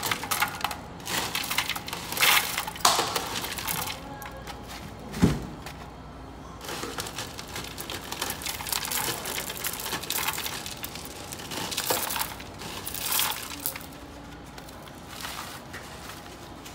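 Cereal flakes falling from a breakfast-bar dispenser into a foam bowl, clattering in several short bursts, with a dull knock about five seconds in. Music plays in the background.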